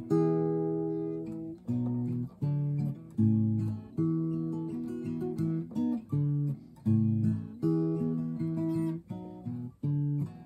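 Acoustic guitar music: a slow run of strummed chords, each struck sharply and left to ring out and fade before the next.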